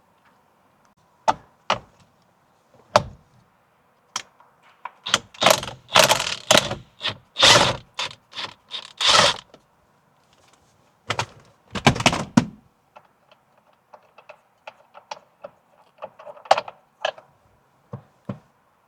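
Metal tool clicks and clunks from a socket wrench with a 15 mm socket undoing the steering-wheel centre bolt. Scattered single clicks give way to denser clattering in the middle and again about twelve seconds in.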